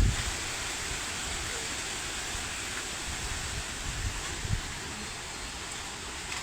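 Strong wind blowing: a steady rushing hiss, with irregular low gusts buffeting the microphone and one low thump right at the start.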